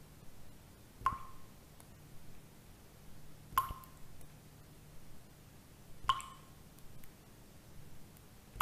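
Slow, regular water drips, one short ringing plop about every two and a half seconds, over a faint low hum.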